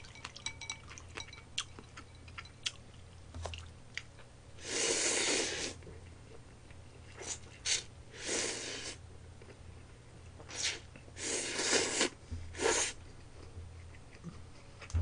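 Cold buckwheat soba noodles being slurped from a bowl of dipping broth: several slurps, the longest about five, eight and eleven seconds in, with chewing and light chopstick clicks between them.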